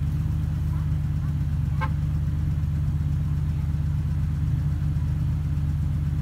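Jeep Wrangler engine idling steadily close by, a low even drone. About two seconds in there is one short high chirp.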